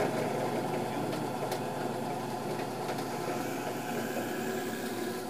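Craftsman drill press running steadily, its bit boring slowly down through a wooden block to make an axle hole.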